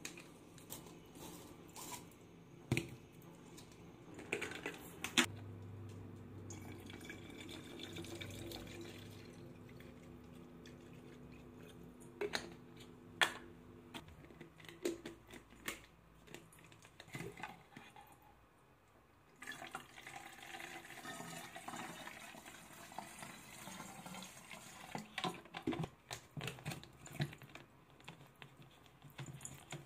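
Liquid being poured and dribbled between plastic bottles, with sharp clicks and knocks of plastic caps, a spray-bottle top and bottles being handled. The loudest knocks come about three, five and thirteen seconds in.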